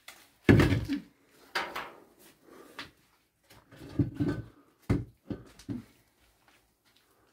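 A series of knocks, bumps and short scrapes in a small bare room, about six of them, the loudest about half a second in: things being moved and set down by hand.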